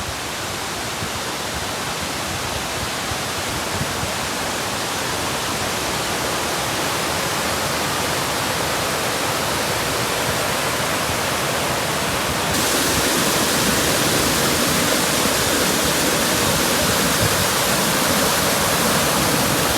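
Arethusa Falls, a waterfall of about 160 feet, rushing steadily with a loud even roar of falling water. About two-thirds of the way through, the rush becomes louder and more hissy.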